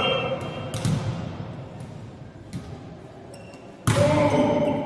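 Volleyball play in a large sports hall: a ball struck about a second in, then a harder hit near the end followed by a short shout from a player. The sound rings in the hall.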